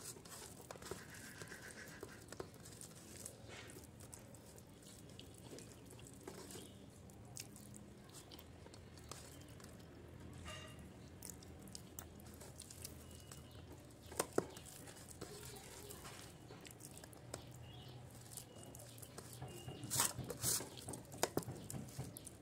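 A person eating rice and curry by hand: chewing, and fingers kneading wet rice on a steel plate, with scattered light clicks and a louder run of them near the end.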